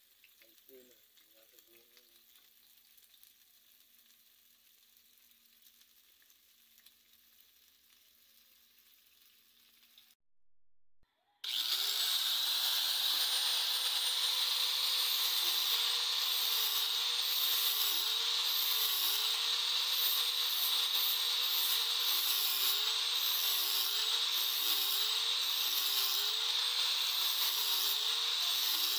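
A faint hiss as the hot steel bolo blade steams. Then, after a short silence, an angle grinder with a flap disc starts and runs loudly, grinding the blade. Its motor whine dips in pitch in a quick rhythm, more than once a second, as it is pressed onto the steel.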